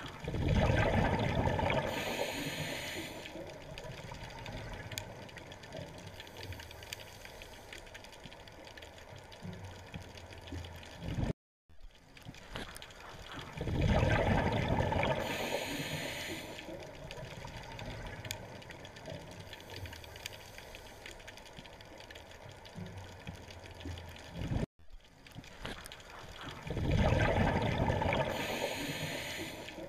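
Scuba diver's breathing underwater: a loud rush of exhaled bubbles gurgling for a few seconds, with a short hiss, then fading to a low bubbling, repeating three times about every 13 seconds.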